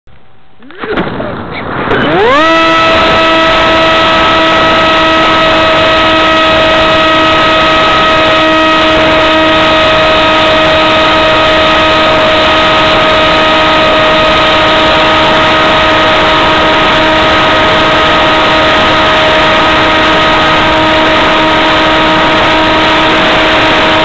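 An RC flying wing's motor and propeller, heard from its onboard camera. The whine climbs quickly in pitch as the motor spins up in the first two seconds or so, then holds as a steady high drone over a constant rush of air for the rest of the flight.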